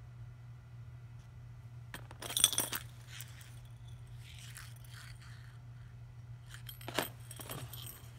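Small hard objects clinking and clattering as they are handled and set down, loudest about two seconds in, with another short clatter about seven seconds in. A steady low hum runs underneath.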